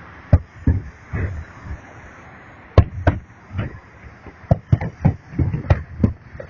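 Fireworks shells bursting in a series of sharp bangs. There are three in the first second and a half, then after a pause a quicker run of about eight more, closer together, from about three seconds in.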